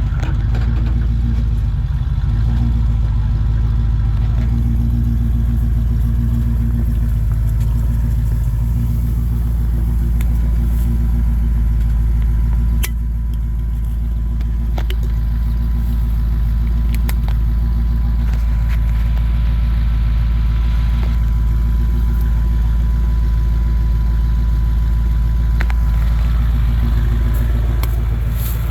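Off-road truck engine running at low, steady revs, with a few sharp knocks and clicks here and there.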